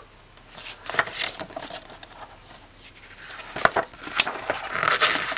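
Paper pages of a small booklet being turned and handled: soft rustles and light taps, with a brief rustle about a second in and a longer run of page-turning rustle in the last two seconds.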